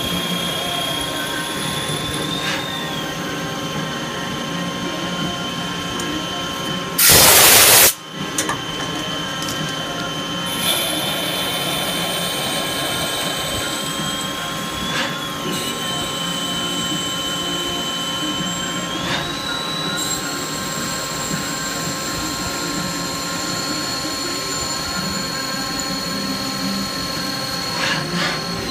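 Hardinge T-42 CNC lathe machining a part: a steady high whine from the machine's drives that glides up or down in pitch several times as speeds change, over a constant running hum. About seven seconds in there is a loud hiss lasting about a second.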